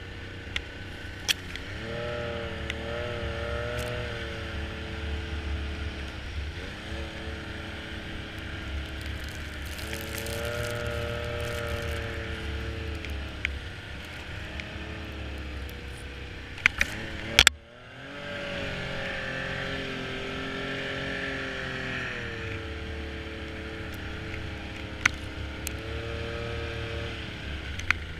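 Snowmobile engine running, its pitch rising and falling in several long surges as the throttle is opened and eased off. A loud sharp knock comes about two-thirds of the way through, with a brief dip in the engine sound before it picks up again.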